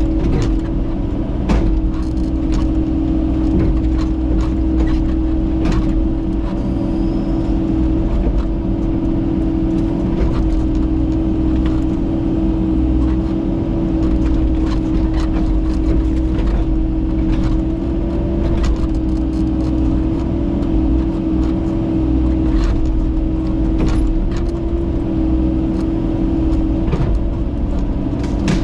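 Small gasoline engine of a Mechmaxx SM-22 bandsaw mill running steadily at high speed, with scattered sharp clicks and knocks over it.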